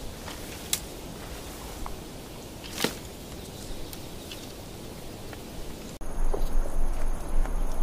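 Woodland ambience: a steady hiss with scattered sharp snaps and clicks, like twigs and dry grass underfoot. About six seconds in it turns louder, with a steady high insect drone like crickets over a low rumble.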